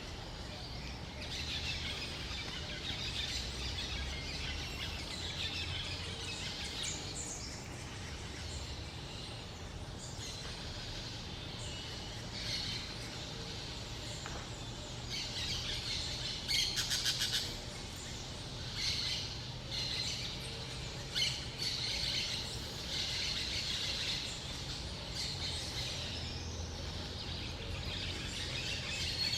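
A pair of yellow-winged parakeets chirping and chattering in short, shrill calls, busiest around the middle, over a low steady background rumble.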